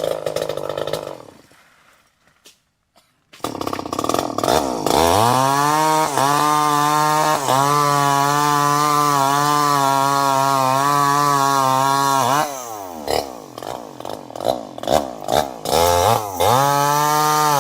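Chainsaw engine running, falling silent for about two seconds, then starting up again and revving to full throttle, held steady for about seven seconds. It then drops back to an uneven idle with short throttle blips and revs up again near the end.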